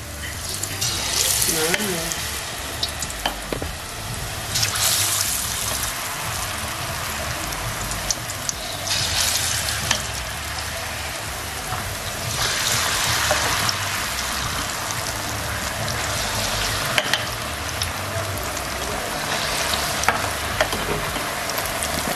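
Batter-coated potato pieces deep-frying in hot oil: a steady sizzle that swells several times, with a few light clicks.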